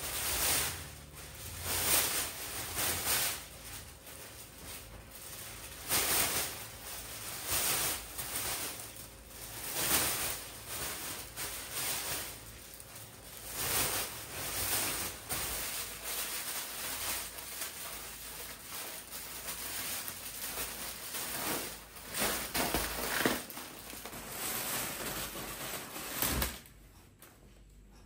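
Household handling noises: an irregular run of short rustling strokes, roughly one every second or two, which stop shortly before the end.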